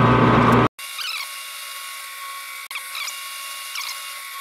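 Metal lathe running while a single-point threading tool cuts a 14 TPI thread on a metal shaft, peeling off a stringy chip. The sound drops off abruptly under a second in, then carries on quieter as a steady whine with a few short squeaky chirps.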